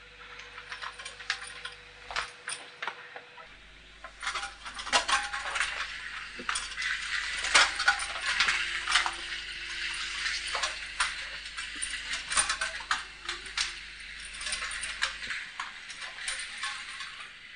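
Manual wheelchair rolling along a hard corridor floor: a string of small clicks and metallic clinks over a hiss, sparse at first and denser from about four seconds in.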